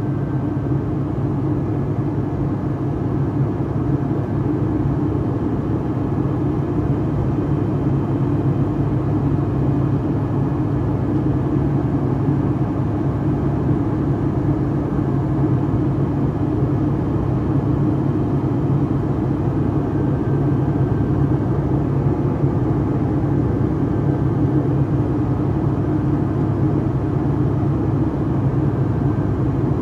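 Steady drone of a Boeing 757-300's Pratt & Whitney PW2043 turbofan engines, heard inside the passenger cabin over the wing during the climb.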